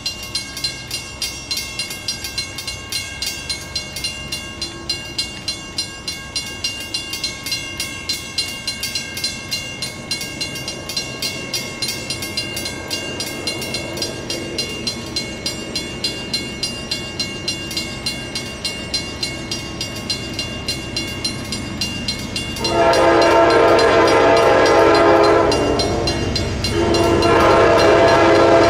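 A rapid regular ringing, about two to three strikes a second with a high ring to it, over a growing low rumble from an approaching Amtrak passenger train. About three-quarters of the way in, the lead GE P42DC diesel locomotive's air horn sounds two long, loud chord blasts with a short break between them.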